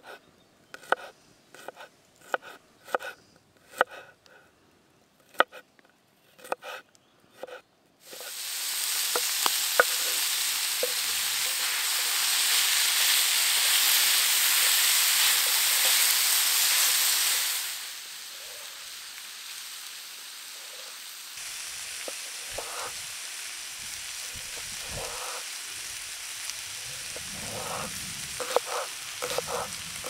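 A run of sharp knocks, then about eight seconds in food hits a hot pan and sizzles loudly. After about ten seconds the sizzle drops to a quieter steady frying, with clinks and knocks of stirring over it.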